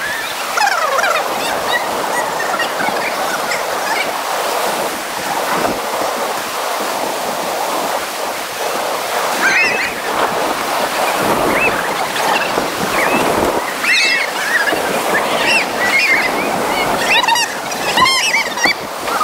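Whitewater rapids rushing around an inflatable raft, a steady loud wash of water. Over it, people on the raft whoop and yell in short bursts, more often in the second half.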